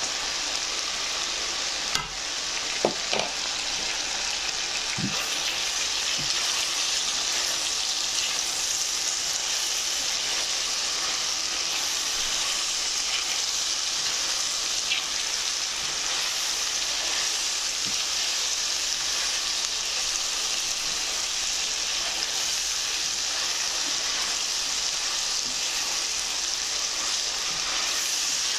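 Cubed beef and chopped garlic sizzling in hot oil in a frying pan, a steady frying hiss, with a couple of brief knocks a few seconds in.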